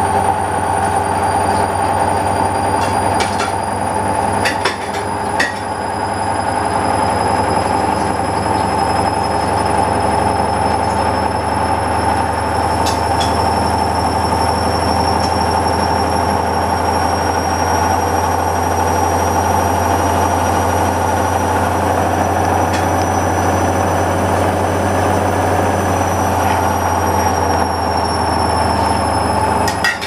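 Hoover Dynamic front-loading washing machine spinning a slightly unbalanced load: a steady rumble from the drum under a high motor whine that slowly climbs and then eases off a little near the end, with a few light clicks a few seconds in.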